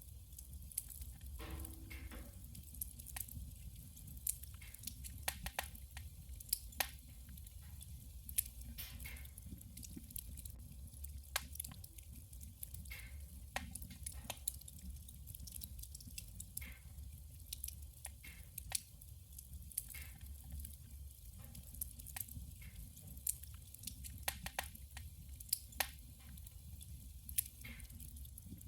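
Wood fire burning in a wood stove, crackling and popping with irregular sharp snaps over a low steady rumble.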